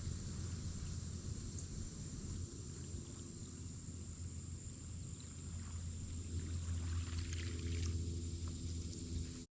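Boat motor running with a steady low hum, a higher tone joining about six seconds in; the sound cuts off suddenly at the end.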